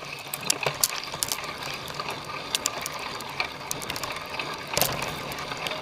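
Cyclocross bike's rear hub ratcheting as it coasts, with irregular sharp clicks and rattles, the strongest about five seconds in.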